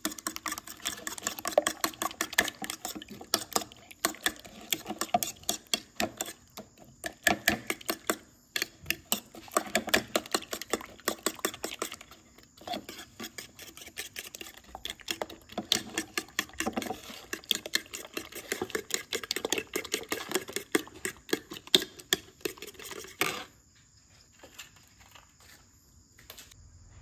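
Rapid, irregular clicking and tapping of a kitchen utensil against a dish, as in mixing or mashing, that stops abruptly about 23 seconds in. Crickets chirp steadily underneath and are left alone at the end.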